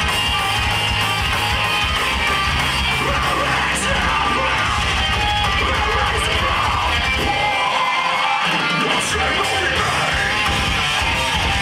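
A metalcore band playing live, loud, with distorted electric guitars, bass and drums, heard from the crowd. The low end drops out for a moment about eight seconds in, then the full band comes back in.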